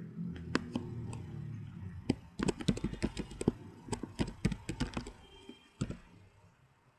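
Typing on a computer keyboard: a few scattered keystrokes, then a quick run of key clicks lasting about three and a half seconds, with one last keystroke near the end.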